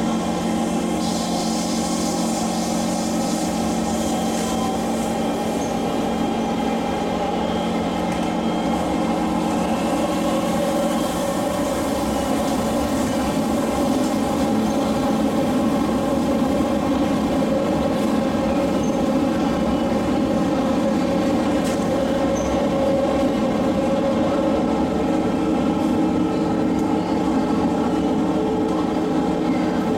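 Interior running noise of an SMRT C151 metro train travelling along the track: a steady rumble of wheels on rail with a steady hum of several tones, getting a little louder about halfway through.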